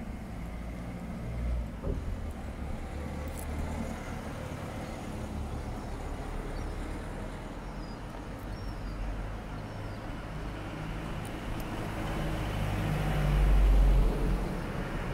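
Town street traffic: a steady low rumble of vehicles with faint clicks, swelling louder about twelve seconds in, then easing off.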